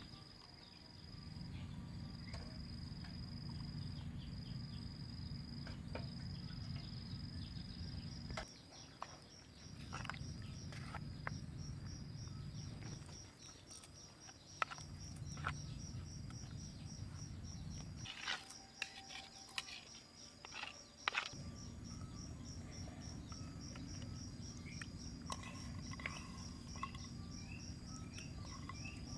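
Insects, crickets or similar, trilling steadily at a high pitch in rapid pulses. Under them is a low rumbling noise that cuts out and returns several times, with a few sharp clicks and knocks.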